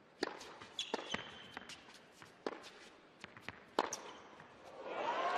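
Tennis ball struck by rackets in a rally: a handful of sharp hits about a second or more apart, with a short squeak about a second in. Crowd applause swells up from about five seconds in as the point ends.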